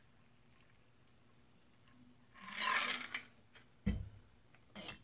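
Bar tools being handled: a short rush of liquid-like noise about two and a half seconds in, then a single sharp knock as something, likely the cocktail shaker, is set down on the bar, and a lighter knock near the end.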